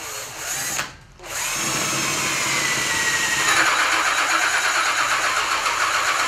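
Cordless drill driving a hole saw into hardwood pallet wood: a short burst, a brief stop about a second in, then a long steady run of cutting whose motor whine drops in pitch about halfway as the saw bites. The drill is struggling in the hard wood, its battery running down.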